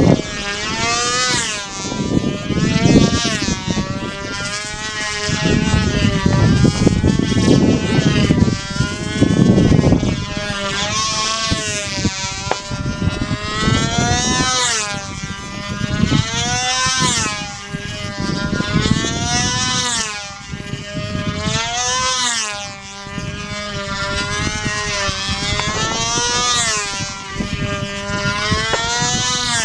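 Small two-stroke model engine of a control line combat plane running flat out in flight, its high buzzing note swinging up and down in pitch about every two seconds as the plane circles and loops around the pilot.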